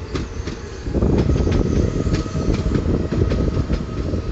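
Stadler FLIRT electric multiple unit approaching along a station platform: a steady rumble from the running gear, with irregular clicks as the wheels cross rail joints and points, and a thin steady whine setting in about a second in.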